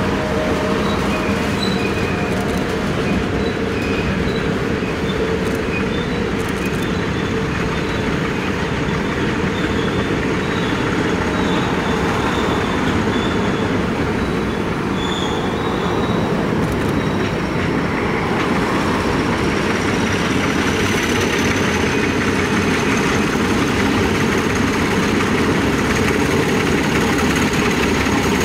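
Freight cars rolling past on curved track: a steady rumble of wheels on rail with thin, high wheel squeals. From about two-thirds of the way in, the Alco diesel locomotives' engines draw closer and grow louder.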